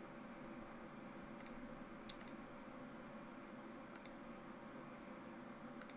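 A few faint, scattered clicks from a computer mouse and keyboard over a low, steady room hum.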